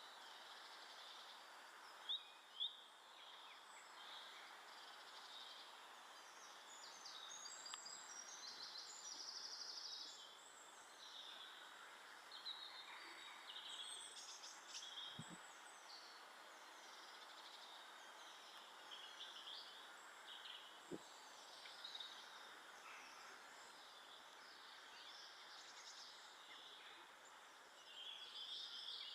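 Small garden birds chirping and calling faintly over a steady background hiss, with two louder short calls about two seconds in and two soft low thumps around the middle.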